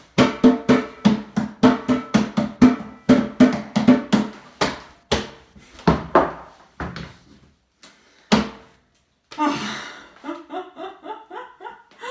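Hands drumming a quick rhythm on a kitchen sink and countertop, several sharp strikes a second that thin out and stop after about eight seconds. A woman laughs near the end.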